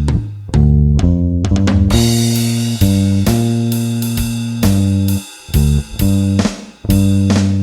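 Bronco electric bass with a Toaster-style neck pickup and flatwound strings, played uncompressed, plays a slow blues bass line of held notes along with a drum kit. Cymbal hits fall about two seconds in and again near the end.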